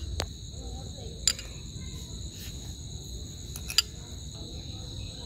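Insects chirring in a steady, high-pitched drone, with three sharp clicks scattered through it.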